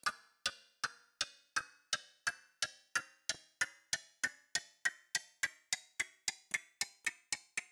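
Grandfather clock ticking sound effect: sharp ticks with a short ring, speeding up from about two and a half ticks a second to about five a second.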